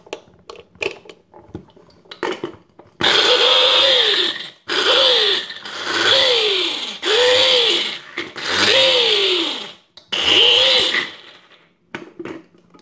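Electric mini food chopper pulsed six times on turmeric, ginger and garlic, its motor whirring up in pitch and dropping off with each pulse. A few light clicks and knocks come first as it is set up.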